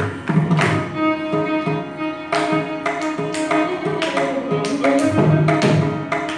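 Carnatic music in Madhyamavati raga: the violin plays a sustained melodic phrase while the mridangam strikes a quick run of strokes in the five-beat Khanda Chapu tala.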